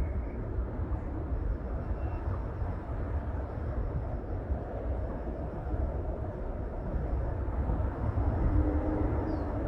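Outdoor ambience dominated by a steady low rumble, with a few faint bird chirps: short calls near the start and a brief falling call near the end.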